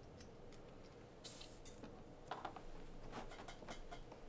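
Faint light clicks and taps of small screws, parts and hand tools being handled on a work mat, with a brief soft rustle about a second and a half in and more frequent clicks in the second half.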